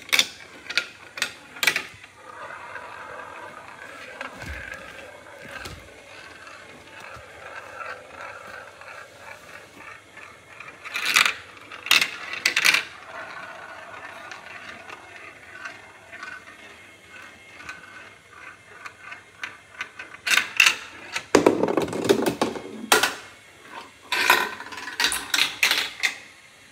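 Glass marbles running through a plastic marble run: sharp clicks and clacks as they drop through tubes and strike the pieces, in clusters near the start, in the middle and throughout the last few seconds, with a stretch of steady rolling rattle along the plastic track in between.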